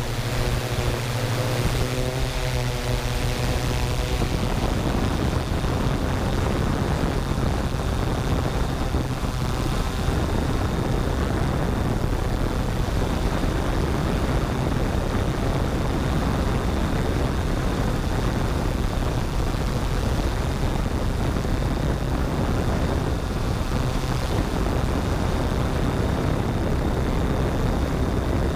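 Yuneec Typhoon G quadcopter's motors and propellers whirring steadily, recorded close up from its onboard camera. For the first few seconds it is a clear, even-pitched hum; after that it turns to a rougher, denser whir.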